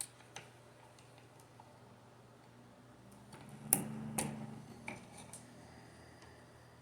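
Wire strippers clicking and snapping as insulation is stripped off electrical wires, with the loudest snap and a short rustle a little under four seconds in and a few lighter clicks around it.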